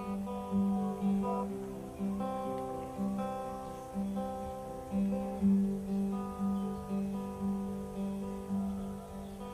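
Acoustic guitar played in a slow, even pattern of plucked notes, about two a second, over a repeated low note. The notes ring on and die away near the end.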